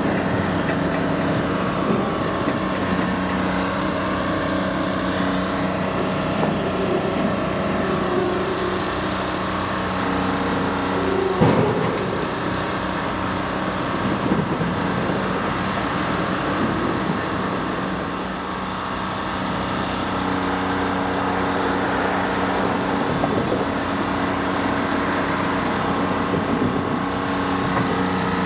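Diesel engines of a Jordan spreader and the Canadian Pacific SD30C-ECO locomotive pushing it, running steadily as the work train moves along the track, with one sharp knock about eleven seconds in.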